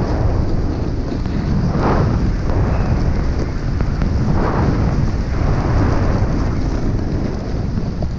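Wind rushing over a GoPro's microphone while snowboarding downhill in powder, with the hiss of the board turning through the snow swelling every couple of seconds.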